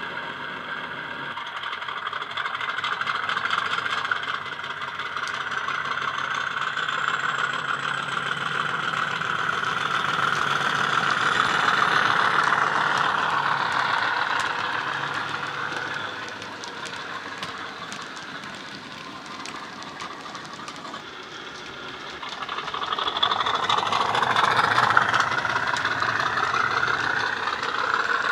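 Class 50 diesel engine sound from a model locomotive's DCC sound decoder, playing through a small EM1 speaker and bass speaker as the model runs. The engine note swells and climbs for the first dozen seconds, eases back to a lower level for several seconds, then builds again near the end, with light clicks through it.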